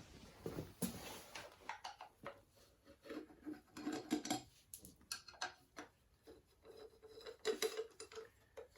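Scattered light metallic clicks and clinks of hand tools being handled during work on an engine, irregular and faint.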